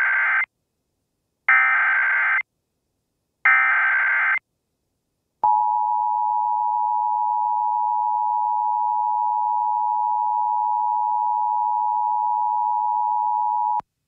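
Emergency Alert System alert start: three harsh digital data bursts of the SAME header, about a second each with short gaps (the first already underway), followed about five seconds in by the EAS two-tone attention signal, a steady dual tone held for about eight seconds and cut off sharply. Together they announce an Emergency Action Notification.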